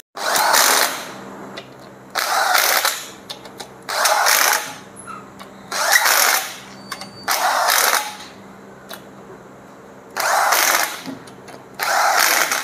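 Power wrench run in six short bursts of about a second each, spinning down the crankshaft main bearing cap bolts on a Toyota Fortuner engine block before they are torqued.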